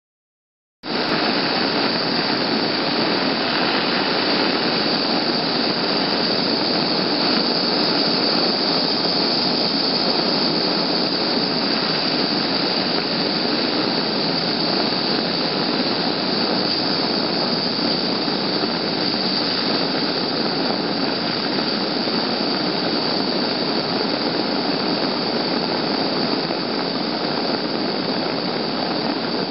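Gas blowtorch flame burning steadily as it melts a gold nugget, a loud, even hiss that starts suddenly about a second in and holds unchanged.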